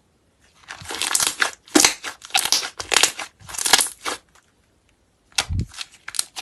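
Purple slime being squeezed and worked by hand, giving a run of crackly squishing bursts, then a pause and a few more squishes with a dull thump near the end.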